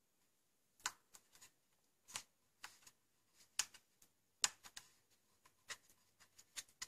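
Faint, irregular clicks and taps of hands handling a Magpul polymer shotgun stock while a small rubber insert is pressed into place over its top, the loudest snap about halfway through.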